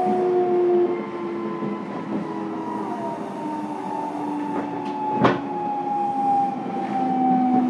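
Running sound inside a Fukuoka City Subway 2000-series car with Hitachi GTO-VVVF inverter traction, heard under way. Several motor and inverter tones fall slowly in pitch over the steady rumble of wheels on rail, with one sharp knock about five seconds in.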